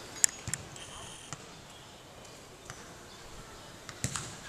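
A football being struck and caught in goalkeeper training: a few sharp, isolated thuds of the ball, the loudest just after the start and another with a duller thud about four seconds in.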